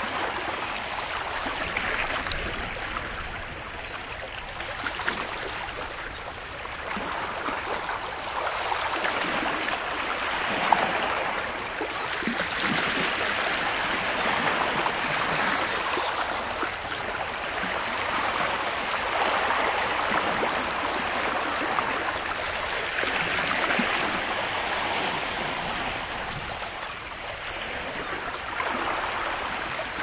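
Small waves washing and lapping on a lakeshore, a steady splashing hiss that swells and ebbs every few seconds.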